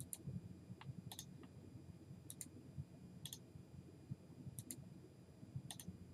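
Computer mouse button clicking, about once a second. Each click is a quick double tick of press and release, faint over a low room hum.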